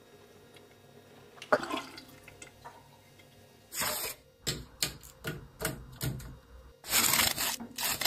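Wet makeup brushes and beauty sponges being handled after rinsing: a soft knock, then a run of short splashy bursts, about two or three a second, and two longer ones near the end.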